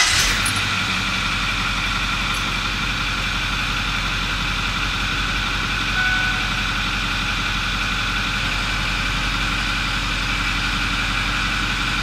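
Ford 6.4L Power Stroke twin-turbo V8 diesel idling steadily just after start-up. It idles really nice, with no misfire at idle.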